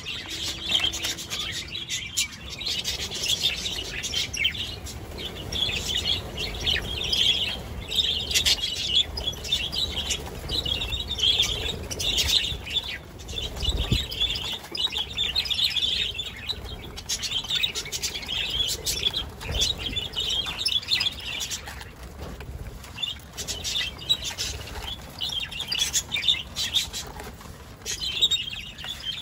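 A large flock of budgerigars chattering and warbling without a break, with wings flapping as birds fly in and land.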